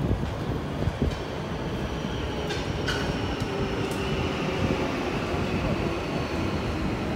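Marmaray electric commuter train pulling into an underground station: a steady rumble of wheels on rail under a faint motor whine, with a few sharp clicks and brief squeals about one, three and four seconds in.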